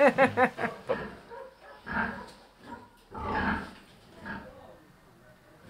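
A person laughing briefly at the very start, then a sow and her suckling piglets grunting a few times, about two, three and a half and four and a half seconds in.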